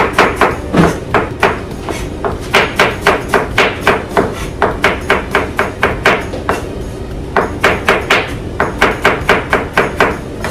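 Knife chopping hard on a cutting board in quick runs of about five strokes a second, breaking off briefly about two seconds in and again past six seconds.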